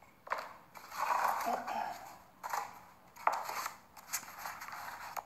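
A polystyrene foam tray being handled on a work table: a handful of separate scrapes and crunches, several starting with a sharp click, the longest about a second in.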